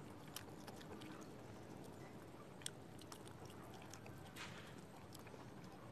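Faint slurping of noodles being sucked up off a fork, with scattered soft clicks and mouth smacks; the clearest slurp comes about four seconds in.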